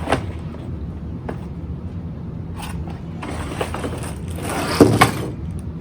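Plastic Lego parts bags rustling and crinkling as they are handled and taken out of the cardboard set box, with a click at the start and two sharp knocks close together near the end.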